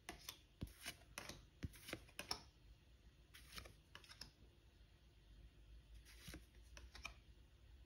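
Faint, irregular soft clicks and rustles of trading cards being slid off a hand-held stack one at a time, busiest in the first couple of seconds.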